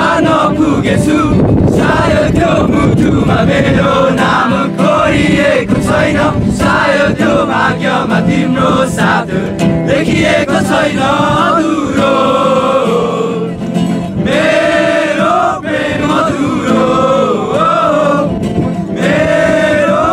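A group singing a song together, accompanied by an acoustic guitar.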